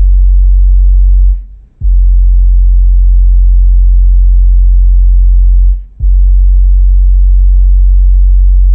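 Stealth AL-250B 25 cm subwoofer in an Axton CAB258 bass-reflex box playing a loud, deep sine test tone around 46 Hz, the box's loudest point, for an SPL measurement inside a car. The tone cuts out briefly twice, about a second and a half in and again near six seconds, and comes back with a click each time.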